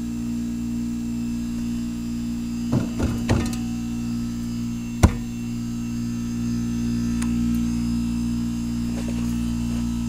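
1988 Heil heat pump running and buzzing steadily while its outdoor fan blades are frozen solid in ice and cannot spin, a stalled fan motor that is feared burned out. A few knocks come around three seconds in and a sharp knock about five seconds in.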